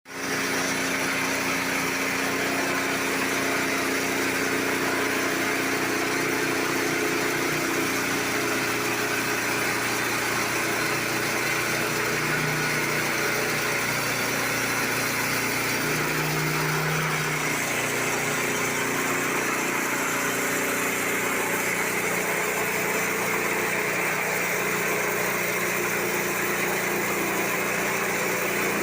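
Small engine of a mobile sawmill running steadily.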